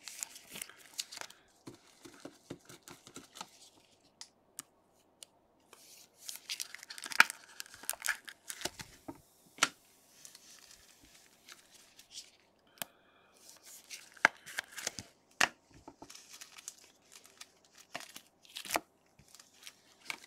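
Foil trading-card pack wrappers crinkling and tearing as gloved hands handle and open packs, in irregular bursts with scattered sharp clicks and taps.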